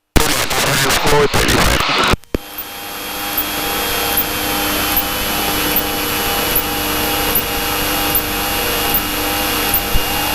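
Steady drone of a Cessna's piston engine and propeller with airflow noise inside the cabin, carrying several steady tones. The first two seconds are a rougher, louder stretch of noise that changes abruptly to the steady drone.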